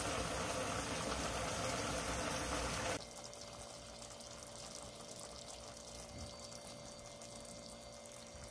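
Braised half-dried pollock simmering in its red sauce in a pot on a gas stove: a steady bubbling hiss for about three seconds, then, after a sudden drop in level, quieter fine popping of small bubbles.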